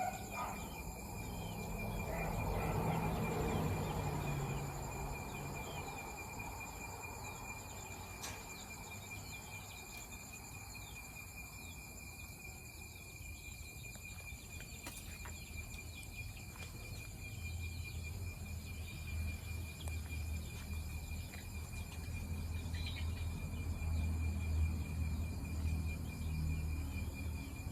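Night insects such as crickets trilling steadily in one continuous high tone, with a low rumble underneath that swells twice.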